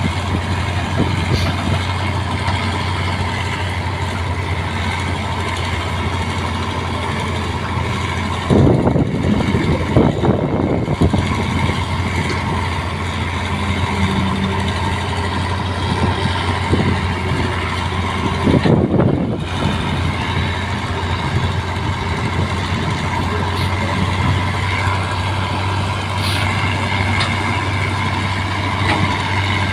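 Excavator's diesel engine running steadily, with two louder bursts of a few seconds each, about a third of the way in and again about two-thirds in.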